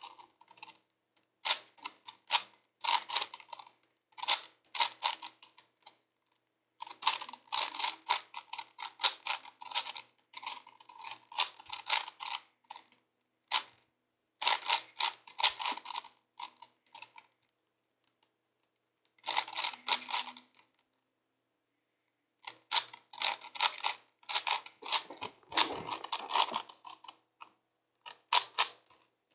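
A plastic 5x5x5 Rubik's cube being turned by hand during a solve. Quick runs of clicking, clacking twists are broken twice by pauses of about two seconds.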